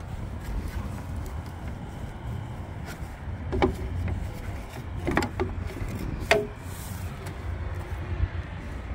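A gloved hand knocks three times on the truck cab's black grab handle beside the entry steps. Each knock is short and sharp, over a steady low outdoor rumble.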